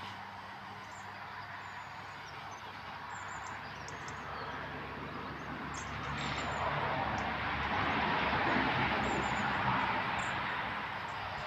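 A vehicle passing on the road, its tyre and engine noise swelling through the middle and easing off near the end, with small birds chirping faintly.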